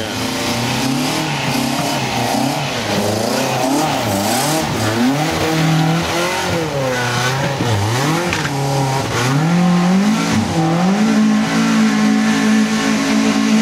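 Mk1 Ford Escort's engine revving hard under load on a muddy woodland climb, the revs rising and falling again and again. About ten seconds in the revs climb and hold high.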